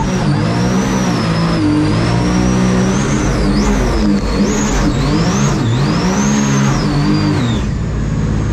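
Supercharged mini jet boat's engine revving up and down under hard throttle, with a high supercharger whine that rises and falls with the revs over a rush of water and wind.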